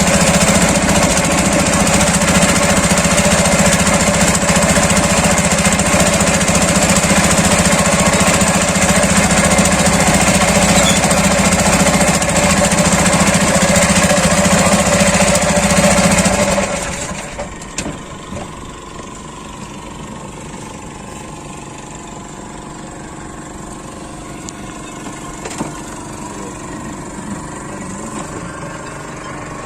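An engine running loudly with a rapid pulsing beat, then dropping sharply about 17 seconds in to a much quieter, steady hum.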